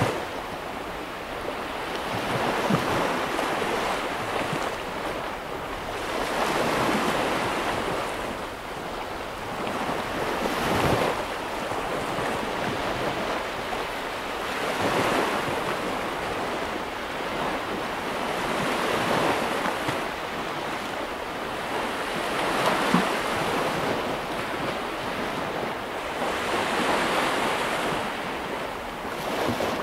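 Baltic Sea waves breaking and washing up a sandy beach. The surf swells and fades about every four seconds.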